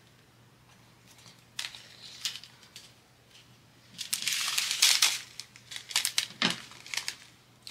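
Small plastic bags of diamond-painting drills crinkling as they are handled: a few short rustles and clicks, then a longer, louder crinkle about four seconds in, followed by more scattered crackles.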